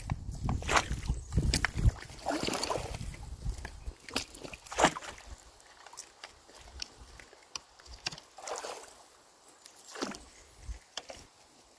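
Water sloshing and splashing in shallow water as a wooden stick is jabbed and levered into the packed sticks and mud of a beaver dam, with irregular knocks of wood on wood. The busiest stretch is in the first half; it turns sparser about six seconds in.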